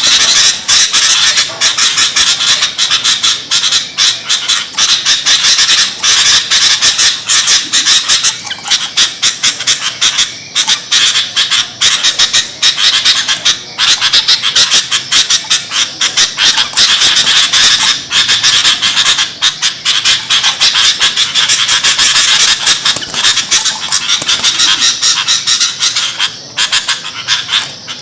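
Sooty-headed bulbul (kutilang) calling noisily and without pause: dense, rapid, harsh chattering calls, the raucous kind of recording played as a lure to trap bulbuls.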